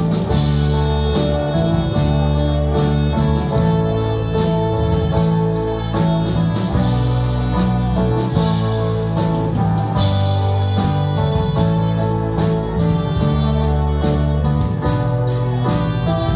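Live instrumental worship music with guitar: sustained chords over a steady, quick beat, changing chord every few seconds, with no singing.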